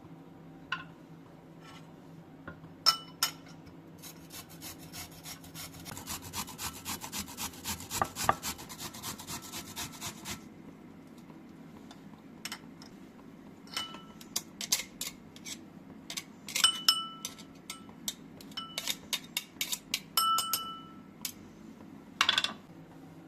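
Kitchen utensils at work: about six seconds of fast, even scraping strokes, then a string of separate clinks of utensils against dishes, several ringing briefly.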